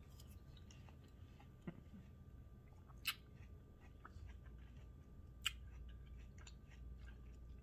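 Faint sounds of a person chewing a bite of watermelon: soft, scattered mouth clicks, with two sharper clicks about three and five and a half seconds in.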